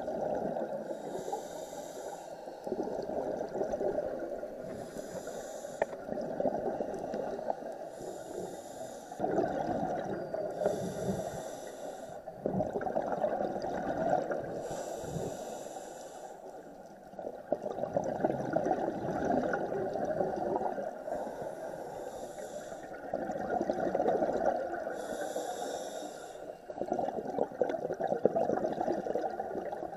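Scuba diver breathing through a regulator underwater: a hissing inhale about every three to four seconds, and between the inhales the exhaled bubbles gurgle.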